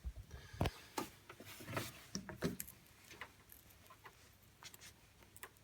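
Rubber hose being worked off its pipe by hand after its clamp has been loosened. Short squeaks, clicks and rubbing come in the first three seconds, then fainter handling noises.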